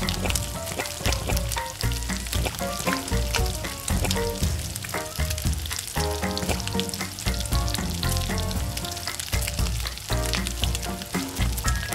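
Pumpkin cake-donut rings deep-frying in a fryer full of hot oil: a steady, dense sizzling crackle. Background music with a melody and bass plays throughout.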